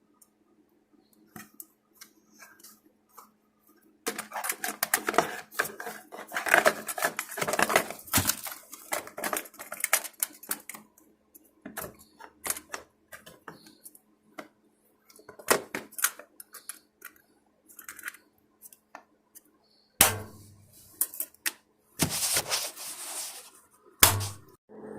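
Hard parts and hardware being handled and fitted during generator assembly: a run of rapid clicks and knocks, densest for several seconds early on, then scattered clatters, with a few abrupt jumps in the sound.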